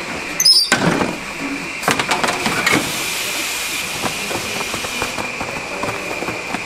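Snack-factory machinery running with a steady high whine, with a few sharp metal knocks and clatters in the first three seconds.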